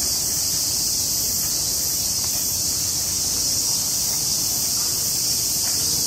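A chorus of cicadas droning steadily and high-pitched in the trees.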